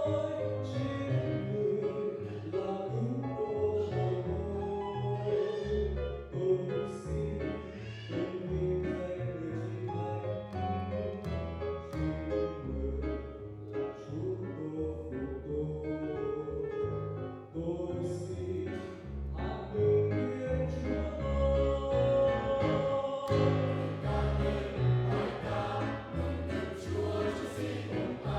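Church choir singing a Vietnamese hymn with keyboard accompaniment.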